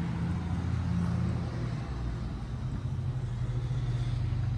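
A steady low mechanical hum, its pitch shifting slightly about a second and a half in.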